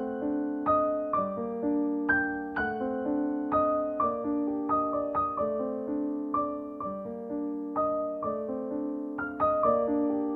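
Background piano music: a gentle melody of single notes struck about twice a second, each left to ring and fade over held lower notes.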